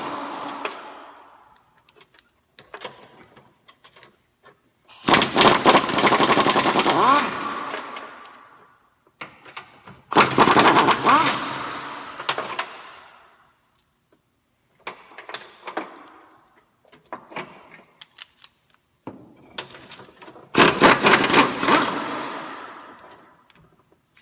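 Pneumatic impact wrench hammering the front engine strut mount bolts loose: four bursts of rapid hammering a few seconds each, the third shorter and quieter, each winding down as the trigger is let go.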